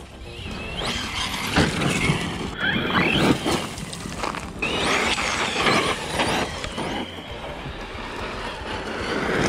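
Team Corally Kronos XTR 2022 RC truggy with a Hobbywing 1650kv brushless motor on 6S, revving hard in repeated rising whines as it is driven in bursts, its tyres scrabbling and spraying dirt and wood chips.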